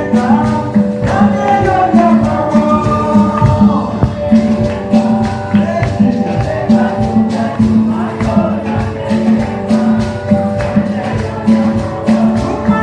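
Live church worship music: a man singing through a microphone over an electronic keyboard, with a steady beat of percussion and hand claps.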